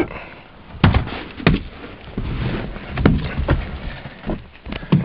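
Irregular knocks, thumps and rustling of someone climbing into a car's driver's seat, the phone handled as they go; the engine is not running.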